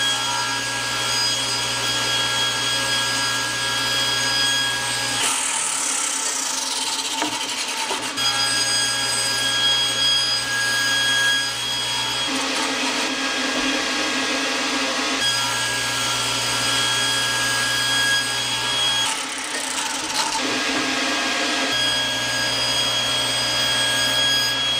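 Table saw running with a steady whine while a scrap of wood on a crosscut sled is pushed through the blade about three times; each cut turns the steady hum into a rougher cutting noise for a few seconds. These are the test cuts of the five-cut method for checking that the sled's fence is square to the blade.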